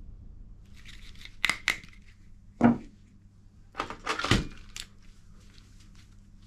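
Scattered sharp plastic clicks and clacks from toy guns being worked. There are two light clicks about a second and a half in, a louder clack just before three seconds, and a quick cluster of clicks around four seconds.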